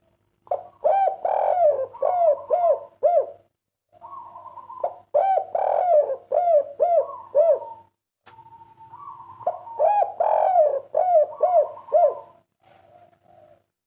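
Spotted dove (derkuku, the 'kuk 3' song type) cooing: three song phrases, each a few seconds long, ending in a quick run of short coos. A faint steady hum lies under the song.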